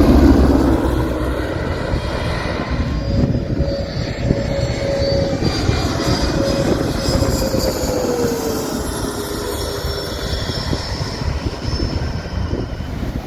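Jet airliner engines fading away after the plane passes low, a steady engine noise with a whine that slides down in pitch about eight seconds in.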